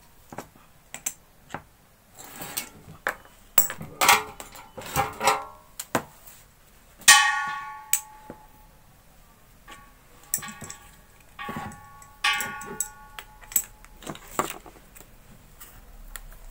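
Steel spanners clinking and knocking against metal hose-nut and regulator fittings while a gas hose is tightened, with three ringing metallic clangs, the loudest about seven seconds in.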